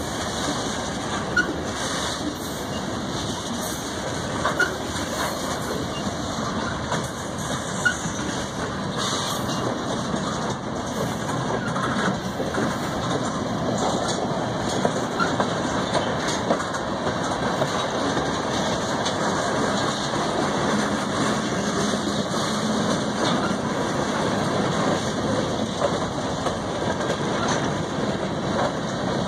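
Freight cars (boxcars, tank cars, covered hoppers) rolling past close by: a steady rumble of steel wheels on rail, with a few sharp clicks and clanks.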